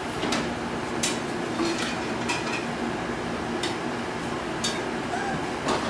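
Puppies knocking the hanging metal cans and chains of a puppy adventure box, irregular metallic clinks and clanks, some ringing briefly.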